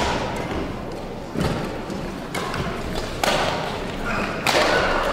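Badminton rally: rackets striking the shuttlecock four times, a second or more apart, with thuds of players' feet on the court floor.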